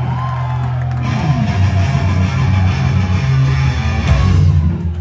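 Punk band playing live through a club PA: distorted electric guitars and bass holding notes, with the drums and full band driving in about a second in.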